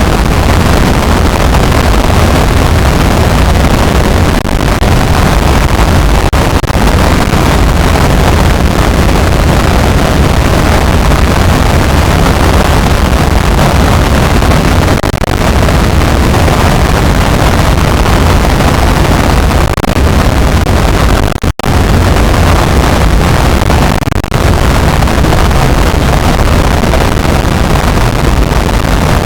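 Loud, continuous harsh noise spread across all pitches, heaviest in the low rumble, with no tones in it; it drops out for a split second about 21 seconds in.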